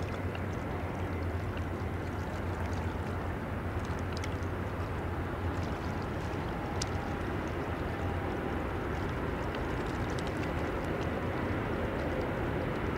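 Distant steady rumble of a passing river barge's engine and a container freight train on the far bank, with a low hum that weakens about two thirds in and a few faint clicks.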